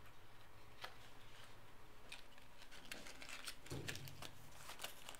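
Faint small clicks and rustles of small objects being handled at a table, thickening from about two seconds in, with one soft thump in the middle, over a low steady room hum.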